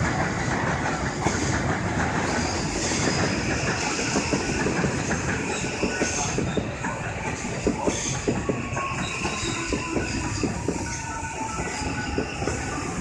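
Electric commuter train running past close by on station track, a steady rumble with the wheels clacking over rail joints and points. A faint whine falls slowly in pitch near the end.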